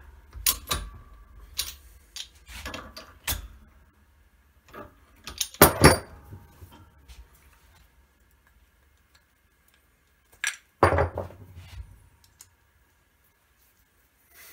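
Steel concho dies and a hydraulic bottle-jack press being handled: scattered metal clicks, clinks and knocks, with two louder clanks about six and eleven seconds in.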